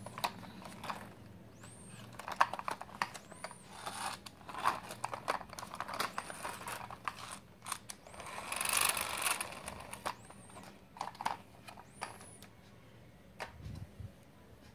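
Small plastic toy car handled close to the microphone: scattered clicks, taps and rattles of the plastic body and wheels, with a longer rustling stretch about halfway through as a wheel is spun.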